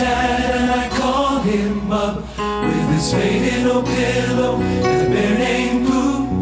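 A large men's choir singing a song together, several voices sounding in harmony with notes held and changing about once a second.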